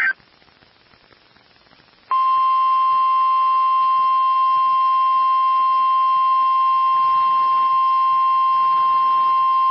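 Weather-radio alert tone for an Emergency Alert System tornado watch: after about two seconds of faint hiss, one loud, steady, single-pitch beep of about 1,050 Hz begins and holds without a break.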